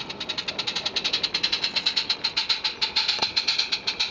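Small live-steam garden-railway locomotive chuffing as it runs, a quick even beat of hissing exhaust puffs, about eight a second, growing louder over the first second.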